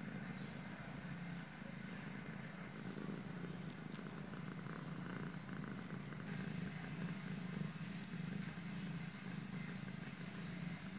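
Domestic cat purring steadily while her kittens nurse against her.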